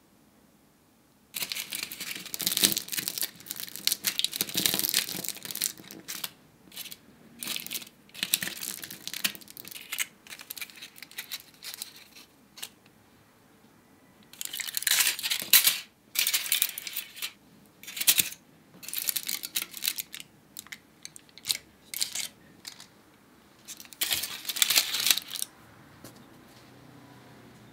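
Aluminium-foil baking cups crinkling and crackling as they are handled and opened out by hand, in repeated bouts with short pauses.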